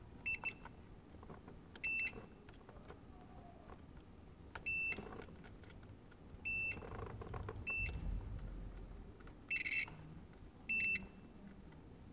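A digital multimeter's continuity beeper gives a short, high beep each time the test probes bridge an automotive blade fuse's two exposed test points. There are about eight beeps at irregular gaps of one to three seconds, two of them quick blips together near the start. Each beep means that fuse is intact.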